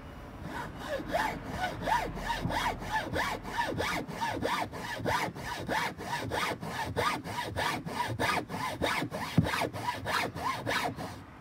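Hacksaw, a fine-toothed metal-cutting saw, cutting through a wooden board by hand in quick, even back-and-forth strokes. The sawing starts about half a second in and stops just before the end.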